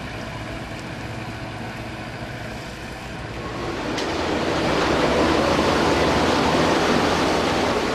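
Combilift four-way forklift running steadily as it drives with a load, a low hum with steady tones. About halfway through, a louder, even rushing noise takes over and holds.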